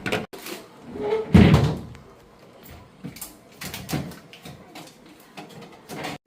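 Knocks and clunks of something hard being handled, with one loud, heavy thump about a second and a half in.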